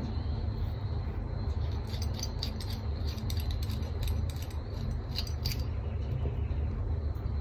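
Small clicks and taps from handling a fountain pen and an ink bottle, scattered through the middle, over a steady low background rumble.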